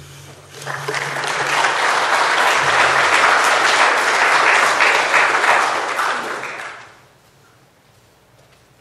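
Audience applauding, swelling about half a second in and dying away after about six seconds.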